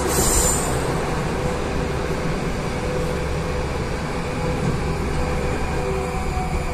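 Moskva-2024 metro train running, heard from inside the car: a steady rumble with a steady whine over it, and a hiss that cuts off within the first second.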